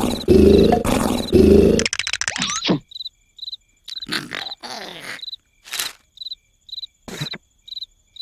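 Two loud, rasping snores in the first two seconds, then crickets chirping steadily, about twice a second, with a few brief noises in between.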